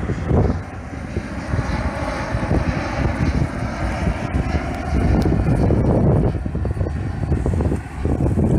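Jet airliner's engines rumbling steadily as it flies low overhead, with a faint whine above the rumble early on, and wind buffeting the microphone.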